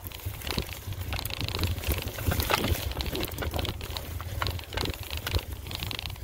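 Mountain bike rolling over a rough woodland trail, the bike rattling with many short knocks, over a steady low wind rumble on the microphone.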